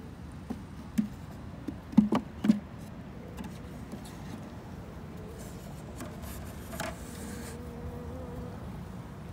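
Wooden top bars of a beehive knocking and clattering as they are handled, with a quick run of sharp knocks about two seconds in. Near the end a lone honeybee buzzes briefly.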